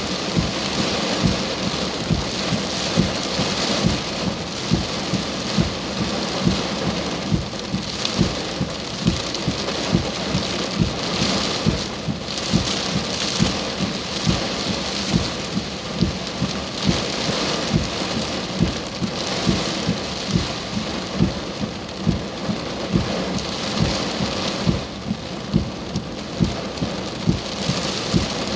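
Heavy rain pouring steadily, with loud, irregular drop hits close to the microphone, about two a second.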